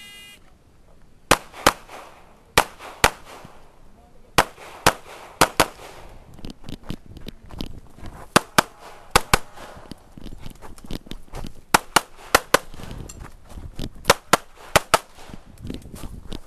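Springfield XD(M) pistol with a red-dot optic fired rapidly at targets, mostly in quick pairs of shots, some thirty shots in all. It opens with a short electronic shot-timer beep, and the first shots follow about a second later.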